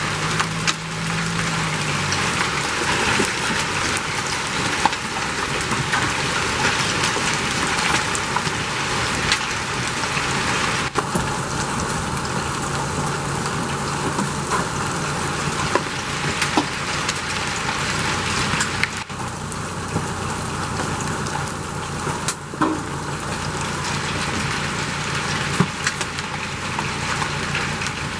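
Hail and heavy rain pelting down in a dense, steady hiss, dotted with sharp clicks of hailstones striking hard surfaces.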